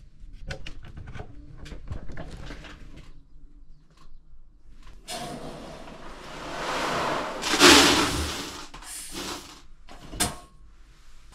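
Buckets and containers being handled: light knocks and clatter, then a rushing pour into a bucket that swells and fades over about four seconds, followed by a couple of sharp knocks.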